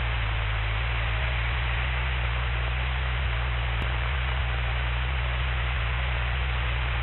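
Steady static hiss over a low, even hum on a light aircraft's intercom audio feed, with nobody talking.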